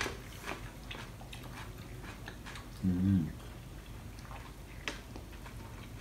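A person eating cold soybean-broth noodles (kongguksu): quiet chewing with scattered faint clicks, and a short low hum from the eater about three seconds in.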